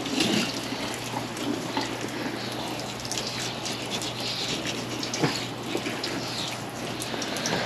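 Fillet knife cutting through a large Pacific halibut along the rib bones, with scattered small clicks over a steady rushing hiss.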